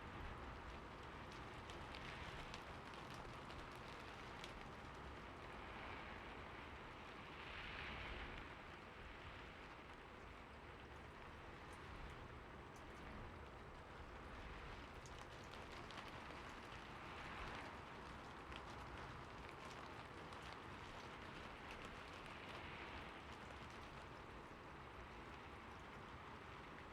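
Quiet, steady rain falling, with the fine ticking of individual raindrops and the downpour gently swelling and easing every few seconds.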